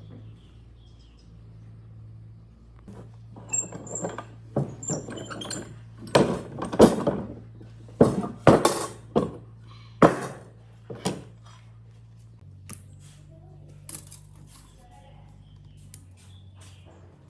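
A string of sharp knocks and metallic clinks, some ringing briefly, thickest in the first half and thinning out after about eleven seconds, over a steady low hum.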